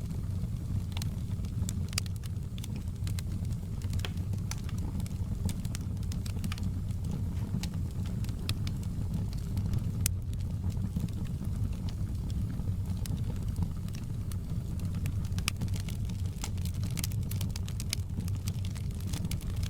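Wood fire crackling in a fireplace: irregular sharp pops and snaps over a steady low rumble of the burning fire.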